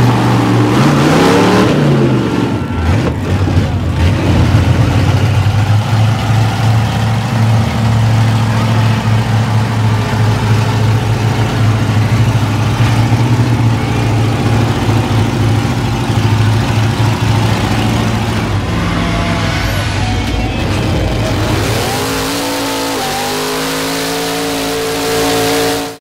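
Big mud truck engines revving hard under load during a truck tug-of-war. The revs climb over the first couple of seconds, then hold high and rough. Near the end the engine noise gives way to steady held tones.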